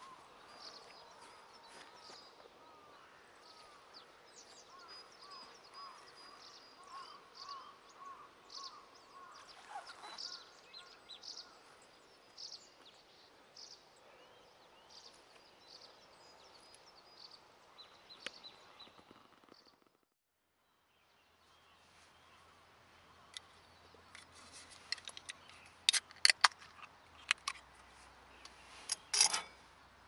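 Several wild birds chirping and calling in quick repeated phrases. After a break, a few sharp clicks and knocks sound, the loudest two near the end.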